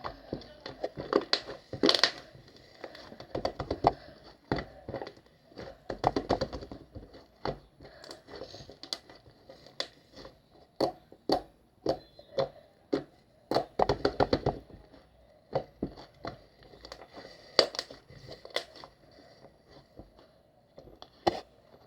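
Hands handling objects: an irregular run of clicks, taps and crinkling, with no steady rhythm.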